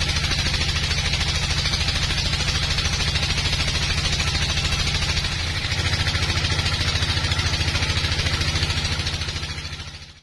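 Sawmill cutting through a large hardwood log: the mill's engine drones steadily while the blade hisses through the wood. The sound fades out near the end.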